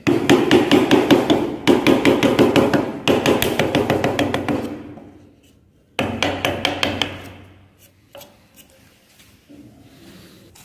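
Wooden mallet striking a wood chisel in quick repeated blows, about five a second, chopping out the waste from a half-lap joint. The blows stop about five seconds in, start again for a shorter run a second later, then stop.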